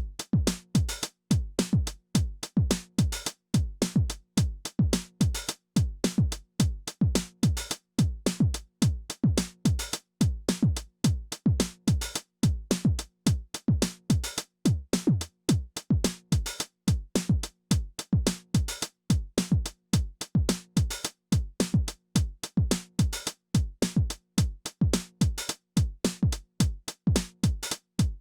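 Behringer RD-9, an analogue drum machine modelled on the Roland TR-909, playing a steady, fast looping pattern. A kick drum drops in pitch on each hit, with crisp hi-hat and percussion hits between.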